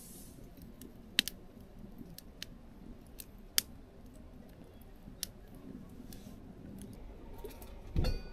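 Small wood fire that has just caught, crackling with scattered sharp pops. A low thump comes near the end.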